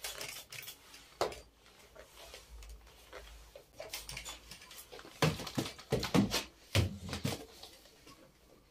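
Scattered knocks and clatters of household objects being handled and set down while cleaning, with a run of louder knocks about five to seven seconds in.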